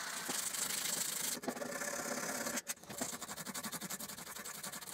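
Hand-sanding the wooden rear handle of a Stanley No. 4 bench plane with 80-grit abrasive paper: a dry, scratchy rubbing that breaks off briefly about halfway through, then goes on in quick back-and-forth strokes.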